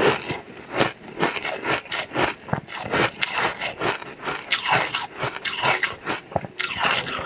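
Pink ice being crunched and chewed close to a clip-on microphone: an irregular run of sharp crunches, a few each second.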